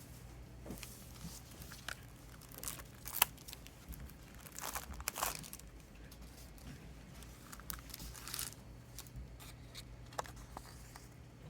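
Plastic packaging of a CD single being handled and opened: irregular crinkling and tearing rustles with scattered clicks, the sharpest click about three seconds in.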